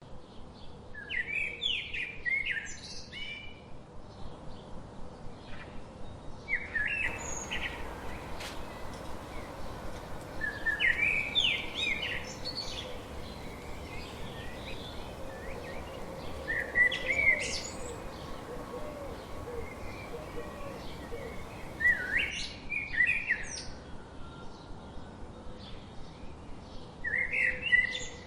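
A songbird singing short, quick warbled phrases of chirping notes, one phrase every five or six seconds, over a faint steady forest background.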